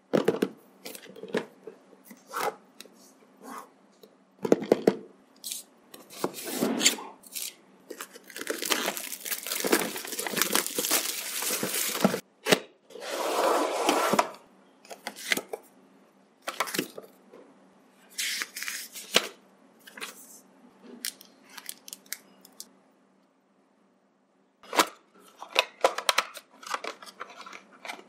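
Unboxing sounds: plastic wrapping torn and pulled off a cardboard box over several seconds, the lid opened with rustling, then a run of clicks and small cardboard rustles as the earphones are worked out of the box's cardboard insert.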